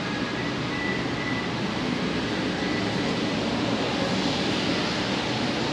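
Steady mechanical drone of ventilation and refrigeration machinery, with a faint high tone briefly in the first second or so.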